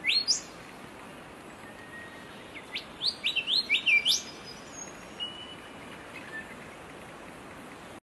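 Male golden whistler singing: one rising whistle at the start, then a quick run of rising upswept whistles about three to four seconds in, over a faint steady hiss.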